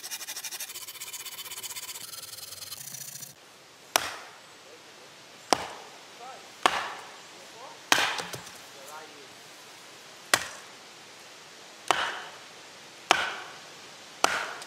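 A blade rasping back and forth through a log for about three seconds, then a hatchet splitting firewood on a stone block: eight sharp chops spaced a second or two apart.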